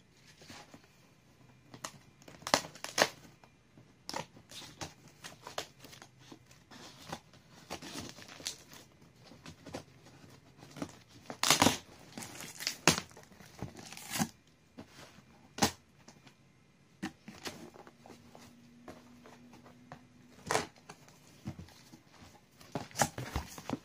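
Packing tape being peeled and ripped off a cardboard shipping box in a string of sharp, irregular rips, the loudest about halfway through. Cardboard rustles and crinkles as the flaps are pulled open near the end.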